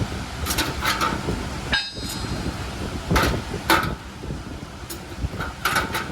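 Hand hammer blows on iron, ringing briefly, mostly in pairs about half a second apart, over a steady low rumble.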